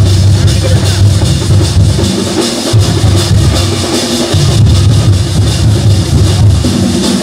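Loud drum-led music: steady drum hits over a heavy low beat that drops out briefly about two and about four seconds in.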